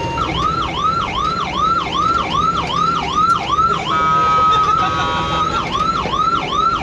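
Fire truck siren sounding a fast yelp, a rising-and-falling wail about three times a second. It breaks into a steady held note for about a second partway through, then returns to the yelp, with the truck's engine rumbling underneath.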